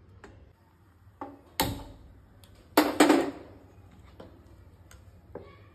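Steel spoon and steel pot knocking together as solid ghee is scooped and the pot is handled: a few sharp metallic clanks with a short ring, the loudest about three seconds in, between softer ticks and scrapes.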